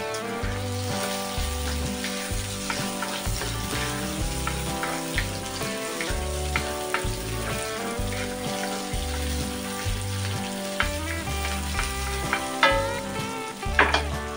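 Sliced onions sizzling in oil in a cast-iron wok, stirred with a wooden spoon, with two sharp knocks near the end. Background music plays throughout.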